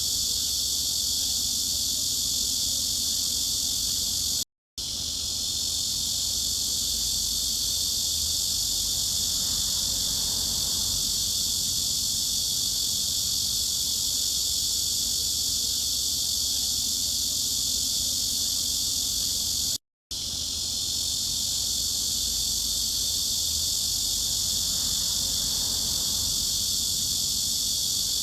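A chorus of cicadas in a steady, high-pitched, unbroken buzz. It drops out to silence for a split second twice, about four and a half seconds in and again near the twentieth second.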